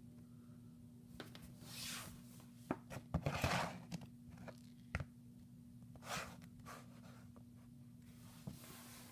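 Handling noise: a few light knocks and soft rustles as small vinyl Godzilla figures are moved about on a wooden floor, the loudest knocks bunched about three seconds in, over a steady low hum.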